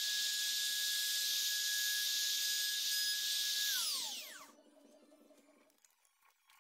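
Makita compact router motor running at full speed with a steady high whine. About four seconds in it is switched off, and its pitch falls as the motor and bit spin down to a stop.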